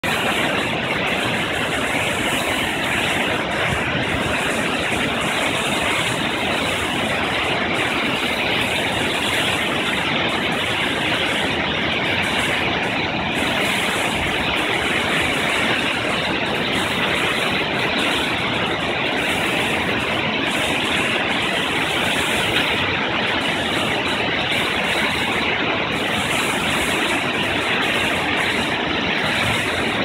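Steady rush of a tall waterfall, about 40 metres high, plunging into a rocky pool, with white water spilling around boulders. It is a constant, even noise that does not change.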